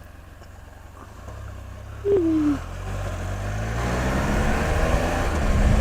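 Can-Am Spyder RT's Rotax 1330 inline three-cylinder engine running low and quiet, then pulling away and rising steadily in pitch as it accelerates through the second half. A brief falling vocal sound about two seconds in.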